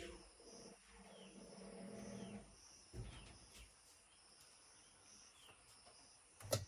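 Very quiet outdoor background of faint insect chirring, a high thin note that swells and fades, with a few short falling bird chirps. Soft knocks come about three seconds in and again near the end.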